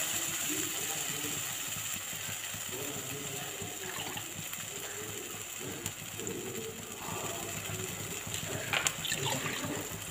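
Onion-tomato purée frying in oil in a kadai, sizzling with small irregular pops and crackles that fade slightly. A few light clatters come near the end.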